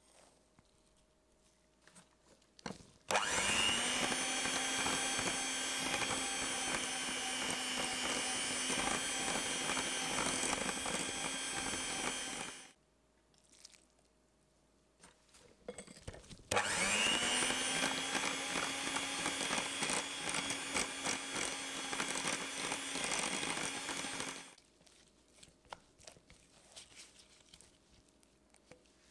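Electric hand mixer beating a batter in a glass bowl, run twice for about eight to nine seconds each. Each run rises quickly in pitch to a steady whine. Between the runs there are only faint clicks.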